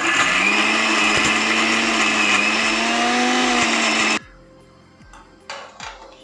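Electric mixer grinder's motor spinning up and running at speed, grinding coconut, garlic, cashews and green chillies to a paste, then switched off suddenly after about four seconds. A few light knocks follow near the end.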